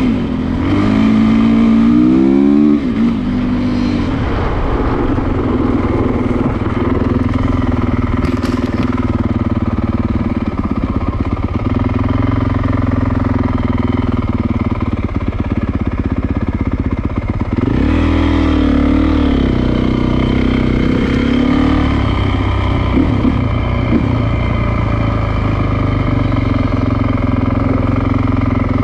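Honda CRF450R's single-cylinder four-stroke engine running hard as the bike is ridden, the engine note climbing and dropping with throttle and gear changes near the start and again a little past the middle.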